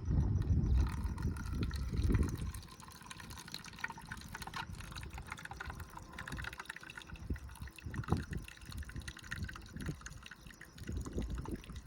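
Hot water poured from a thermos into the small water reservoir of a Makita 18-volt cordless coffee maker, a steady trickling pour filling it to about 200 ml. A low rumble covers the first two seconds or so.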